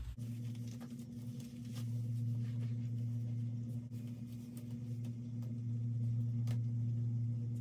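A steady low hum with a few even tones, over which come faint rustles and soft taps of hands pulling a curly wig down over a wig cap and adjusting it.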